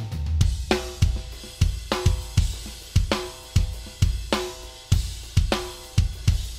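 Raw, live-recorded studio drum multitracks of a metal drum kit played back alone: kick drums, snare hits that ring with a clear pitched tone, and cymbals and hi-hats washing between them in a steady groove, with no guitars, bass or vocals.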